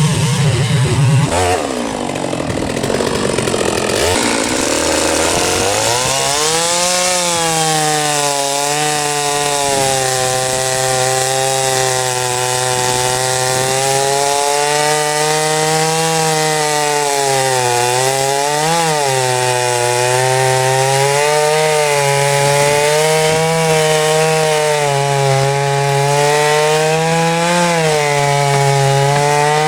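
Large chainsaw with a 36-inch bullnose bar revving up, then running under load in a cut. The engine note sags and recovers again and again as the long bar pulls through the wood.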